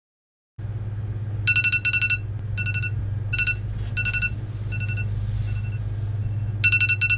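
Smartphone alarm ringing: repeated clusters of short electronic beeps, strongest about a second and a half in and again near the end, over a steady low hum.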